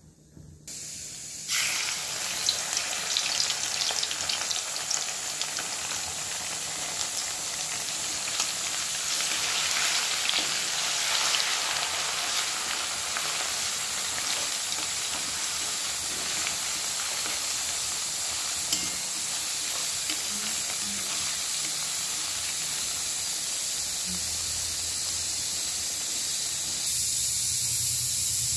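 Grated potato sizzling and crackling as it fries in hot oil in a wok, a steady hiss with many small pops. The sizzle starts suddenly about a second and a half in.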